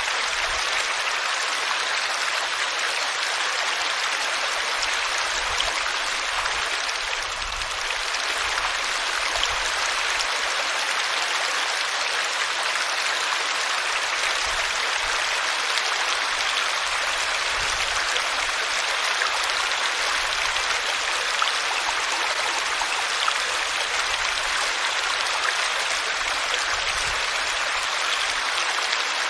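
Water flowing in a small stream, a steady rushing babble.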